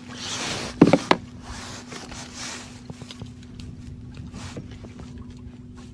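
Fishing gear handled on a kayak deck as a rod is rigged: a short rustle, then two sharp knocks about a second in, followed by light clicks and taps, over a steady low hum.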